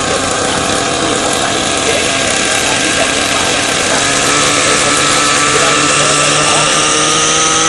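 Align T-Rex 700N nitro RC helicopter's glow engine running on the ground with the rotor turning, its pitch rising steadily through the second half as the head spools up toward lift-off.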